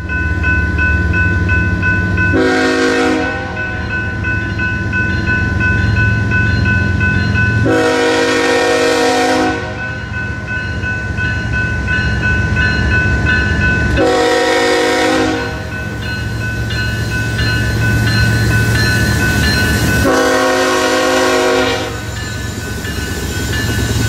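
Approaching BNSF freight locomotive's horn sounding four blasts several seconds apart, the first one short and the others longer, over the steady dinging of the grade-crossing warning bell and a low rumble.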